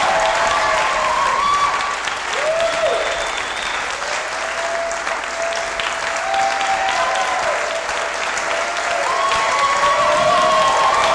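Audience applauding and cheering, with drawn-out whoops from several voices over the clapping.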